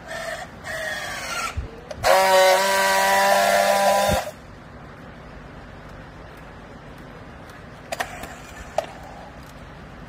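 Battery-powered handheld strapping tool working on plastic strap. It first tensions the strap with a short motor whine that climbs in pitch, then gives a loud, steady buzz for about two seconds as it friction-welds the strap, cutting off abruptly. Two sharp clicks follow near the end.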